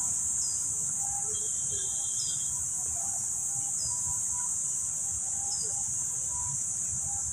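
Steady high-pitched drone of insects in the trees, with a short bird chirp repeating every second or two and faint voices of passers-by beneath it.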